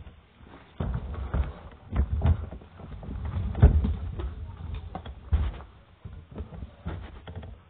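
Irregular knocks, thumps and rustling of things being handled close to the microphone, stopping abruptly near the end.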